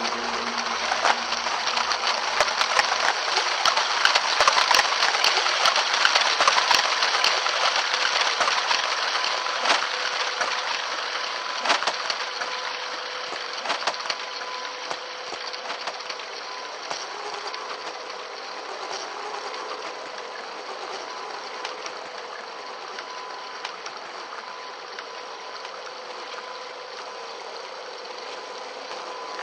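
A 1/10-scale RC crawler truck driving over rough trail ground: a steady whine from its electric motor and gears under a rough rustling noise, with scattered clicks and knocks from tyres and chassis on rocks. The noise is loudest for the first several seconds, then fades gradually.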